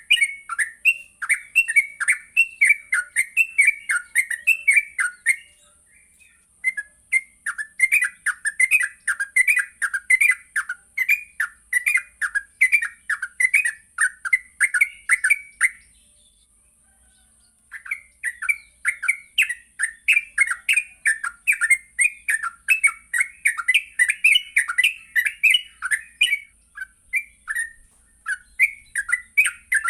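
Yellow-vented bulbul (trucuk) singing a fast, continuous chattering song of short bubbling notes, several a second, with a pause of about two seconds around halfway, a steady faint high hiss underneath.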